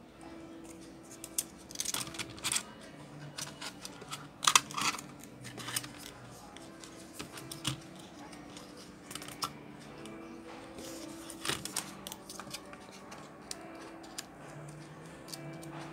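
Plastic clicks and clatters of a Lenovo S10 netbook keyboard being lifted and handled as its cable is worked free, in scattered bursts with the loudest clatter a little under halfway through. A faint steady tone runs underneath.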